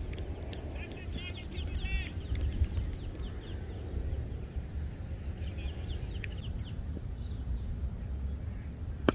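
Birds chirping and calling in short repeated notes over a steady low wind rumble on the microphone.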